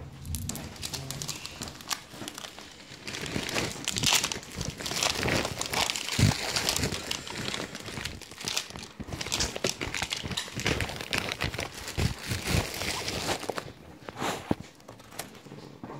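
Paper and plastic medication packaging crinkling and rustling as it is unwrapped and handled by hand, with scattered small clicks and knocks, easing off near the end.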